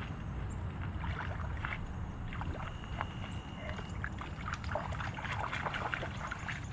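Splashing and sloshing of shallow river water, with scattered irregular clicks and rustles, over a steady low rumble; typical of someone wading into the river to retrieve a lost shoe.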